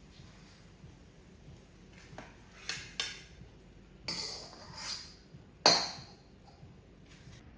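Kitchen utensils knocking and scraping against pots and dishes: a few separate clinks and short scrapes, the loudest a sharp knock about two-thirds of the way through.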